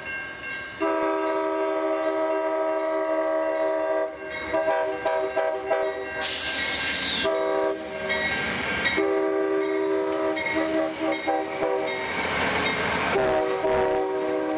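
Amtrak GE P42DC Genesis diesel locomotive's multi-note air horn sounding in long blasts with short breaks as the train passes close by, its pitch a little lower near the end. Two loud rushes of noise come about six and twelve seconds in.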